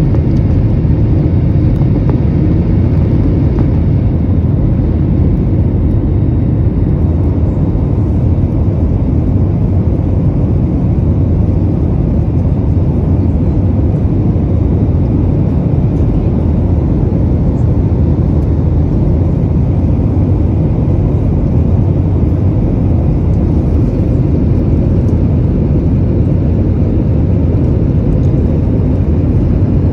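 Steady low rumble of an Airbus A321neo's jet engines and airflow, heard from inside the passenger cabin during the climb after takeoff.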